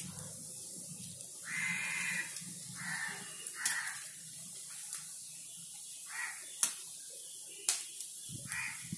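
Mustard seeds and cumin sizzling in hot mustard oil in a kadhai, with a few sharp pops as the seeds crackle. Several short animal calls come through, the longest about two seconds in.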